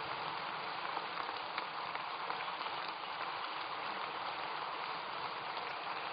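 Large crowd giving a standing ovation: steady applause from many hands clapping.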